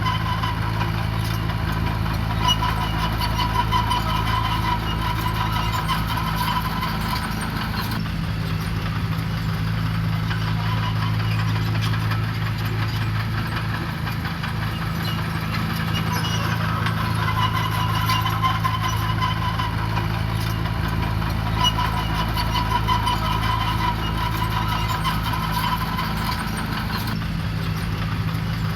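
Diesel engine of heavy earthmoving machinery running steadily, a low hum with a higher whine above it. The engine note changes about eight seconds in and again near the end.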